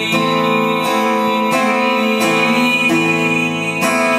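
Acoustic guitar strummed slowly in a live concert, a few strokes with the chords ringing on between them.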